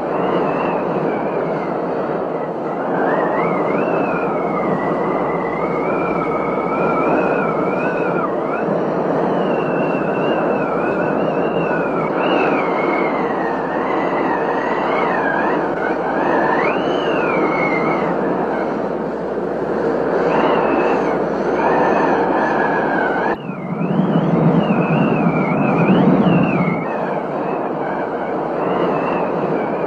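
Heavy thunderstorm rain rushing steadily, with a high wavering whistle over it. Just after the middle the sound drops out for an instant, then swells deeper and louder for a few seconds.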